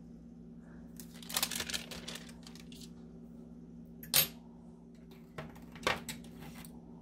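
Tracing paper rustling as it is peeled off a sheet of polymer clay, then a single sharp click about four seconds in, the loudest sound, and two lighter knocks about a second and a half later, over a steady low hum.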